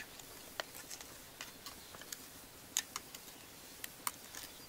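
Scattered light clicks and scrapes of a plastic junction box and trowel being worked into firm soil, the box eased in by hand rather than hammered, to take an undisturbed micromorphology sample.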